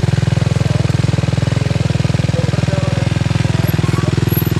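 Sport ATV engine running steadily at idle close by, a fast, even thumping.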